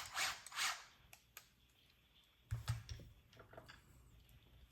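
Small tools and plastic kit parts handled on a workbench: a brief rustle, scattered light clicks, and a couple of dull knocks about two and a half seconds in.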